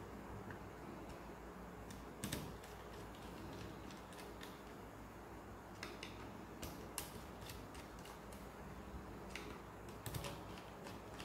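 Screwdriver working the terminal screws of miniature circuit breakers in a plastic panel board: faint, scattered small clicks and taps, with louder knocks about two seconds in and again near the end.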